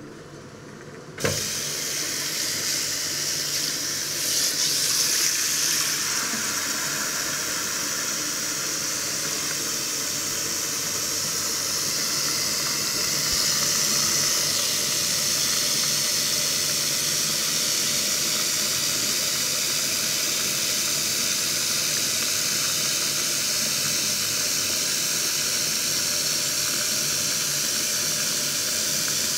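Kitchen tap running into a stainless steel bowl in the sink, filling it with water: a steady rushing hiss that starts abruptly with a knock about a second in.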